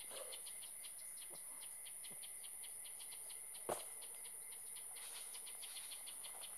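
Insects chirping in a steady, even rhythm of about six short high pulses a second, like a cricket chorus. About halfway through there is a single sharp knock.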